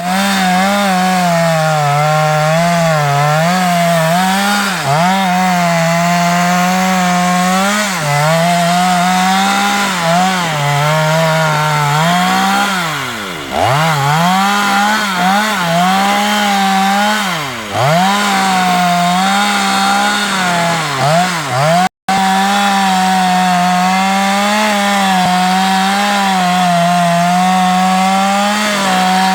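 Stihl two-stroke chainsaw running at high revs while cutting wood, its pitch wavering as the chain bogs and recovers in the cut. Twice, about halfway through and again a few seconds later, the engine drops sharply toward idle and revs back up.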